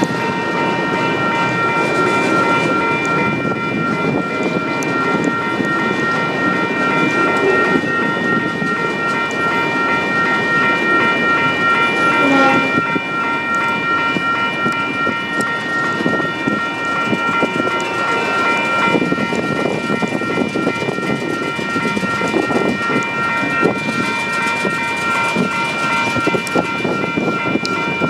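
A long freight train of empty autorack cars rolling past close by: a steady rumble and clatter of wheels on rail, with steady high-pitched tones ringing over it.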